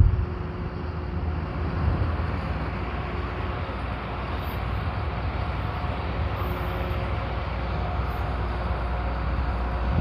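Steady rumble of nearby vehicle traffic outdoors, even throughout, with a faint engine hum.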